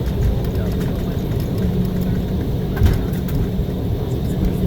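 Cabin noise of an Embraer 190 airliner taxiing after landing: a steady low rumble, with one short knock a little under three seconds in.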